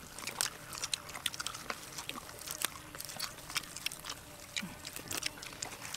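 Eating sounds: crispy battered fried chicken feet being broken apart by hand and chewed, a run of small, irregular crunches and clicks.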